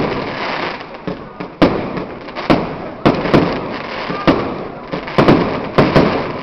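Aerial fireworks display: about eight sharp bangs of bursting shells at irregular intervals, each trailing off in an echoing rumble.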